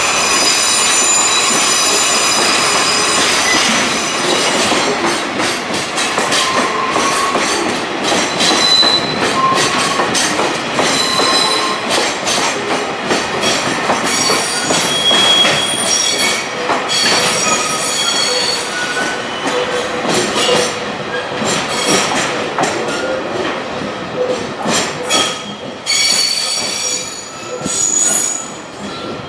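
Freight train of container wagons behind a DD51 diesel locomotive rolling past, its steel wheels squealing on the rails in shifting high tones, with clicks and knocks from the wheels over rail joints; the sound drops away near the end as the wagons move off.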